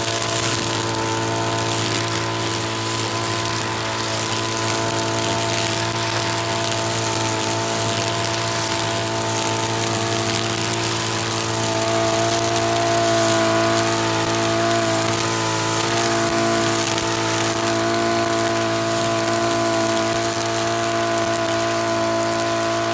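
Petrol brush cutter with a nylon line head running steadily as it cuts through long grass, its engine note holding level with a slight rise in loudness about twelve seconds in.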